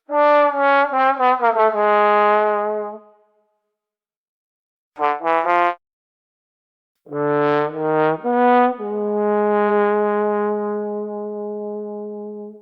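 Sad trombone "wah-wah-wah-waaah" effect, the comic sign of failure or disappointment. Falling trombone notes come in three phrases: first a wavering slide down to a held low note, then a short three-note figure about five seconds in, then from about seven seconds another falling run that ends in a long held low note fading away.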